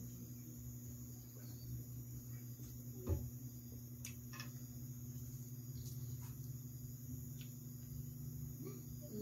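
Soft close-up eating and drinking sounds: a single knock about three seconds in as a plastic soda bottle is set down on the table, scattered small mouth clicks, then bites into crispy fried chicken near the end. A steady low hum runs underneath.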